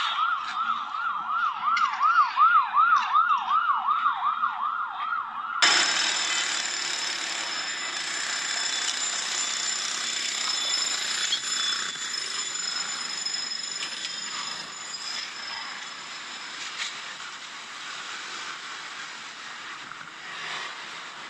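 Emergency vehicle siren on a fast yelp, its pitch sweeping up and down about two to three times a second. About six seconds in it cuts abruptly to a steady noisy rush with several high, steady tones.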